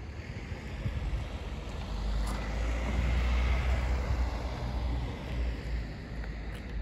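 A car passing by: a low rumble and tyre noise that swell to a peak about three seconds in and then fade away.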